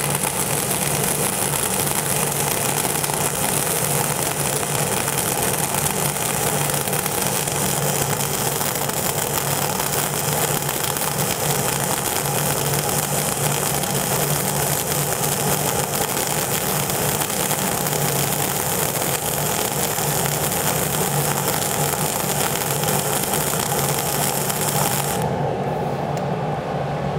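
Flux-cored wire-feed welding arc from an ESAB Rebel 235ic at about 167 amps and 27.5 volts, running steadily while filling a 3/8-inch groove joint. The arc stops about 25 seconds in, leaving a low hum.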